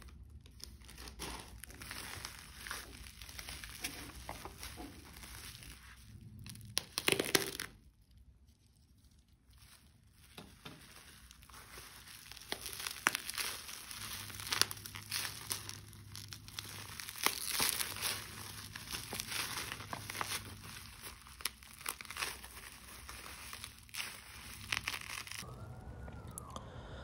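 Bubble wrap crinkling and rustling as it is handled and pulled off a small cardboard box, in irregular crackles; a louder burst comes about seven seconds in, followed by a short lull.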